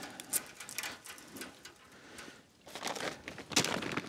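Rustling and small clicks of hands working at a wire fence and handling a plastic packet of cable ties, quieter at first and louder and busier from about three seconds in.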